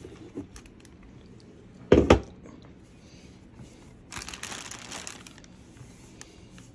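Handling of bagged plastic toy track parts: plastic packaging crinkling and rustling, with scattered small clicks and a sharp double knock about two seconds in.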